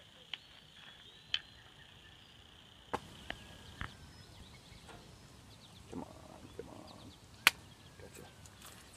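Quiet outdoor ambience with a steady high-pitched hum for the first three seconds, then scattered sharp clicks and ticks, the loudest about seven and a half seconds in.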